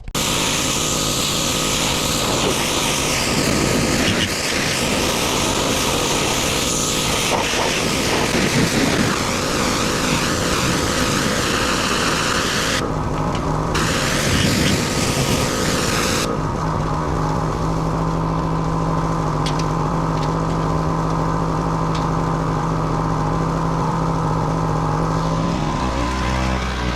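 Pressure washer running: a loud hiss of spraying water over the motor's drone, cut abruptly a few times, then the motor's steady hum with less spray in the second half.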